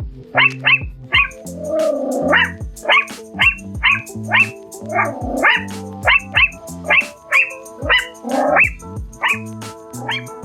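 A Chihuahua barking in short, high, sharp yaps, about two a second, with a few longer, rougher barks mixed in. Background music with held chords plays underneath.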